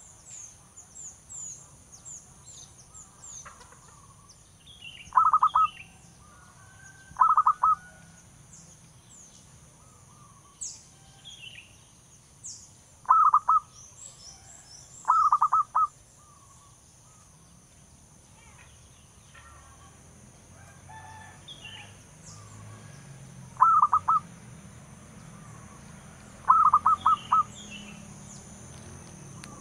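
Zebra dove singing: three pairs of short, rapid trilled cooing phrases, each pair a second or two apart and the pairs several seconds apart. Faint high chirps of other small birds sound behind it.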